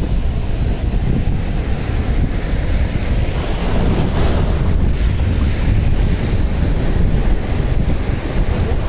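Strong wind buffeting the microphone over the steady wash of sea surf breaking on the shore.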